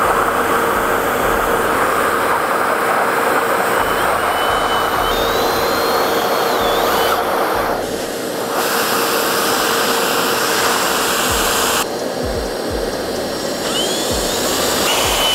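A vacuum cleaner runs steadily while a cordless drill bores a small pilot hole into the metal frame of a steering wheel, with a faint wavering whine. The sound dips briefly about halfway and again about three-quarters through.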